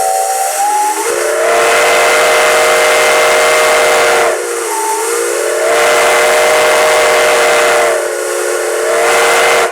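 Flag Coal #75's six-chime steam whistle sounding one long chord over a hiss of steam. Twice the chord sags lower and quieter as the valve is eased back, then swells to full again before it cuts off sharply. It is being blown at length, which a bystander takes for breaking in the whistle.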